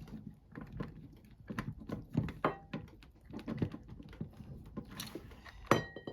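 Small clicks, taps and scrapes of plastic parts being handled and pushed together: wire connectors being worked into the housing of a motorcycle turn signal switch. A sharp click with a brief ring stands out near the end.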